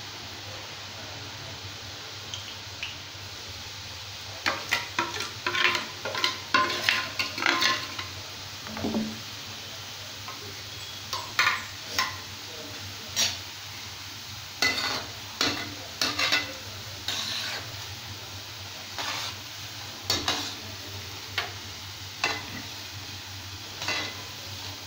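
Boondi batter drops frying in hot oil in an iron kadai, a steady sizzle under a metal ladle knocking and scraping against the pan. There is a quick run of knocks about four to eight seconds in, then scattered knocks as the boondi are stirred.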